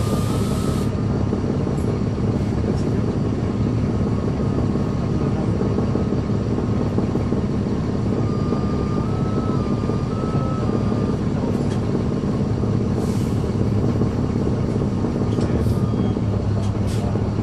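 Caterpillar C13 ACERT inline-six diesel of a NABI 416.15 transit bus running steadily, heard from inside the bus, with a few brief clicks near the end.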